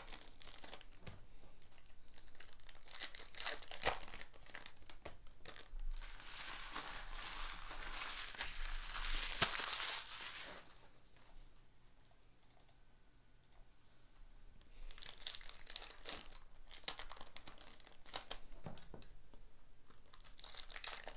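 Foil trading-card pack wrappers crinkling and tearing as packs are opened and the cards handled. There is a denser rustle about six to ten seconds in, a quieter spell just after, then crinkling again.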